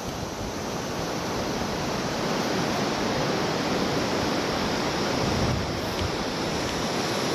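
Ocean surf breaking on the beach, a steady rush of noise mixed with wind.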